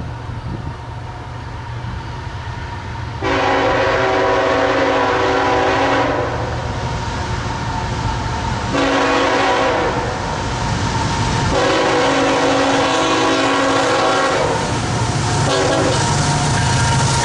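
Nathan K5HLR2 five-chime horn on a CSX ET44AH locomotive blowing a series of blasts: a long one a few seconds in, a short one, another long one, then a brief toot near the end. A steady low rumble from the approaching train lies under the horn.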